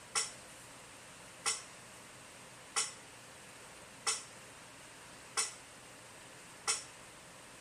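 Metronome click track ticking steadily, one sharp click about every 1.3 seconds, six in all, over a faint hiss, marking the beat while the bass part rests.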